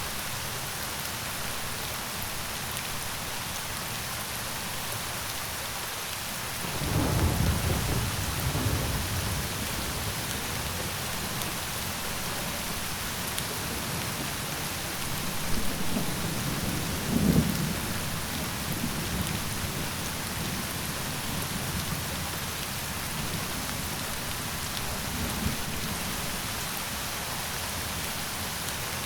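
Steady rain falling, with rolls of thunder rumbling in about seven seconds in and again around sixteen seconds in, then a fainter rumble near the end.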